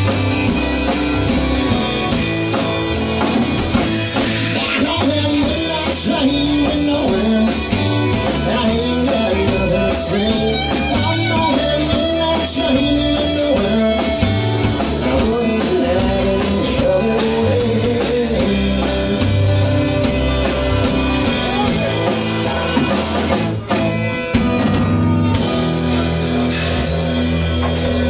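Live country band playing an instrumental break with no vocals: a fiddle carries a bending melody over strummed acoustic guitar, bass guitar and a drum kit. Near the end the band settles onto long held notes.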